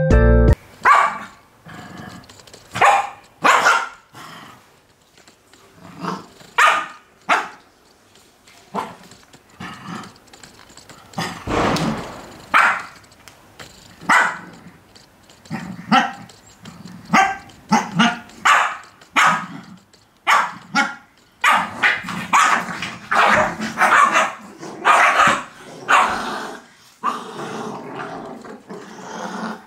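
Shih Tzu puppies barking and growling at each other while play-fighting: many short, irregular yaps and growls, coming faster in the second half.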